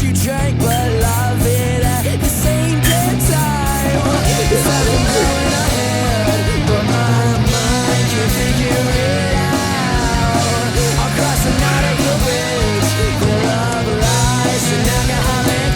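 Rock song with a singing voice over a steady beat.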